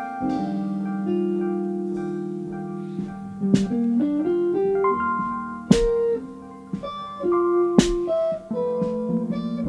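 A rock band playing a song's instrumental passage with no vocals: electric guitar and keyboard notes over bass, with a few sharp drum-and-cymbal hits.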